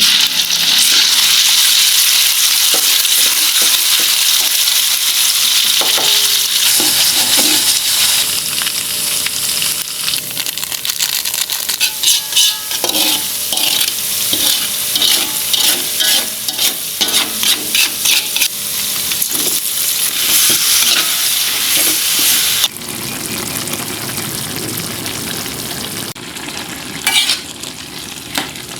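Food sizzling as it is stir-fried in hot oil in a pan, with a utensil scraping and knocking against the pan in many quick taps through the middle. A little past two-thirds of the way in, the sizzle suddenly becomes quieter and lower.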